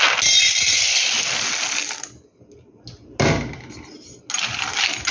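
Raw red-skinned peanuts poured into an empty metal pot, rattling against the bottom: one long pour of about two seconds, then two shorter pours, one a little after three seconds and one near the end.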